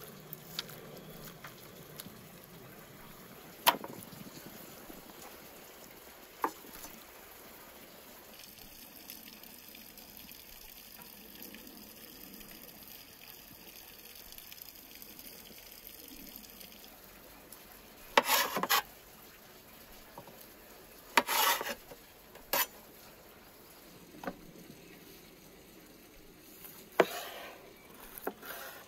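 Knife work on cooked meat: a blade scraping and pulling through meat on a metal griddle, with a few sharp knocks of the blade, and short bursts of cutting noise. Near the end a cleaver cuts through a sausage and knocks once on a wooden chopping board.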